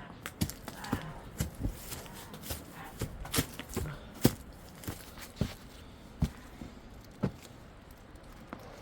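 Irregular steps and knocks on hard ground, about one or two sharp impacts a second.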